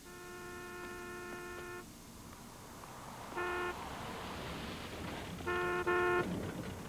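Car horns honking: one long blast of about two seconds, then a short toot, then two quick toots in a row near the end. Under the later honks there is a rising hiss of traffic on a wet road.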